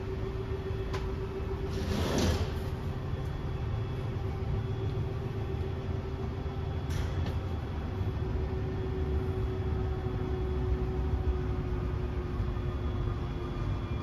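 Travel trailer slide-out's electric motors running as the slide room extends: a steady hum over a low rumble, with a brief rushing scrape about two seconds in.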